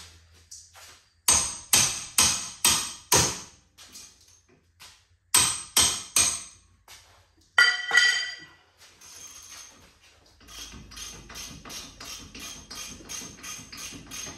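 Hammer blows on a rear wheel hub bearing assembly: five quick strikes, then three more, then two that ring metallically. From about ten seconds in, an even run of light clicks, roughly three a second, as a tool is worked on the hub.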